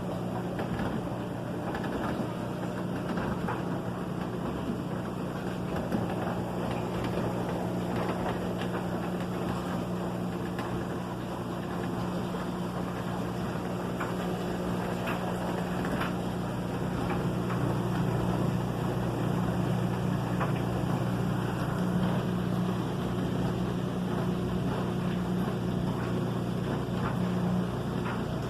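An LG front-load washing machine runs mid-cycle: a steady low hum over a rushing, watery noise with small irregular clicks. Its pitch holds steady throughout, and it gets a little louder in the second half.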